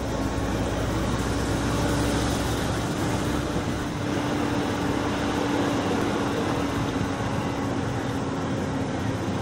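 Steady engine and road noise heard from inside a moving vehicle's cab, with a steady engine hum. It includes the Hino Profia dump truck running just ahead, whose split exhaust manifold (mani-wari) gives it its exhaust sound. A deep low rumble eases off about three seconds in.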